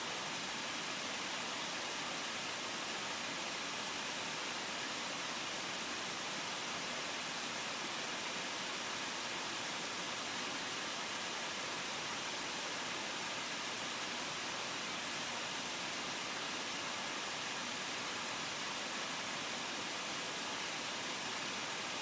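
Microwave oven cooling fan running: a steady airy hiss of moving air, mostly high and with little low hum, holding at one level throughout.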